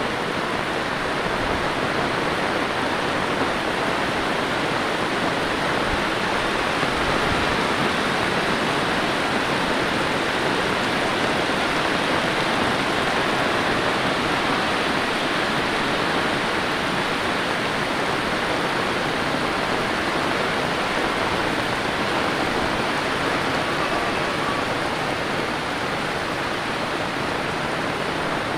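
Heavy rain pouring down steadily, a dense, even hiss with no let-up.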